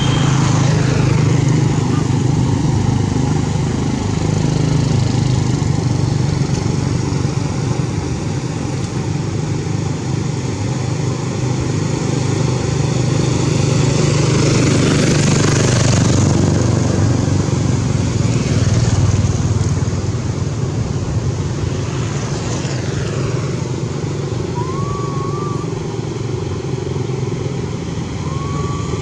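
Road traffic dominated by motorcycles: a steady engine drone, with vehicles passing about a second in, around the middle and again later. Two faint short high calls come near the end.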